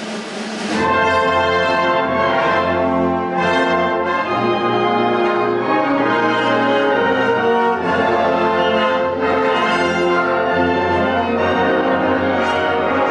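Wind band playing loudly with the brass to the fore. A swelling percussion roll leads into a full band entry about a second in.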